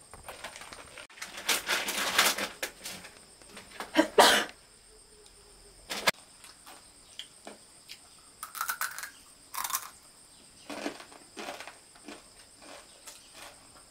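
Irregular bursts of rustling and crunching, loudest about a second and a half in and again around four seconds, over a steady high buzz of insects.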